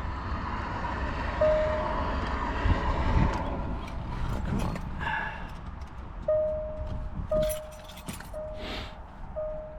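An electronic warning chime: one short tone, then from about six seconds in the same tone repeating about once a second, typical of a car's door-open or key warning chime. Light handling clicks and shop noise sit underneath.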